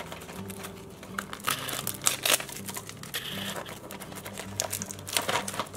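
A small cardboard blind box being worked open by hand: scattered crinkles, small tears and snaps of thin card, busiest about two seconds in and again near the end.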